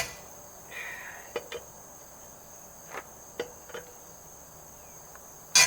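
Steel 4-way lug wrench clicking and clanking against the wheel's lug nuts as they are hand-tightened: a handful of sharp clicks, the loudest at the very start and near the end. Insects chirr steadily and high-pitched in the background.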